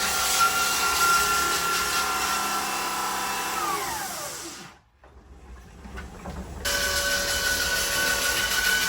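Electric sander running on wooden deck boards with a steady whine. About three and a half seconds in it winds down, its pitch falling until it stops, then it starts up again about two seconds later.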